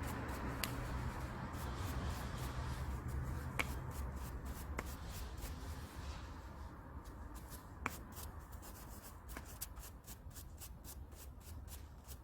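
Wire brush scrubbing and scraping on alternator parts to clean them. The scratching fades after about four seconds, leaving scattered light clicks and ticks.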